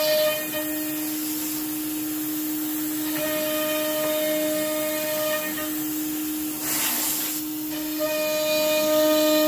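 CNC router spindle whining steadily as its end mill cuts a deep slot in hardwood plywood, over a hiss of compressed air blasting the chips out. A higher tone comes and goes as the cutter works along the slot, and a short louder rush of hiss comes about seven seconds in.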